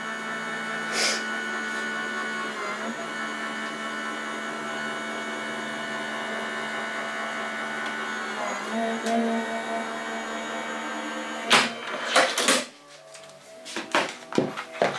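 Sizzix Switch Plus electric die-cutting machine running steadily, its motor pulling a plate stack with a crease pad through the rollers, with a slight shift in tone twice. About 11 seconds in there are a few loud scrapes and the motor stops, followed by several clacks of the cutting plates being handled.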